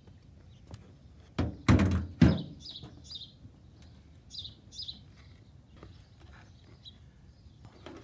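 A few knocks and clunks about one and a half to two seconds in, from a metal scale and a plastic tray being handled. Small birds chirp now and then in the background.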